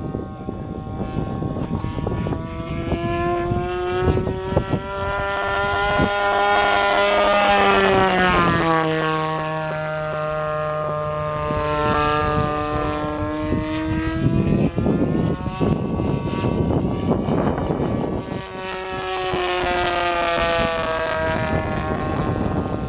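DLE-20 single-cylinder two-stroke gasoline engine of an RC P-51 Mustang model, driving its propeller in flight overhead with a steady buzzing note. The note drops in pitch about eight and a half seconds in and climbs again later as the plane flies its circuit.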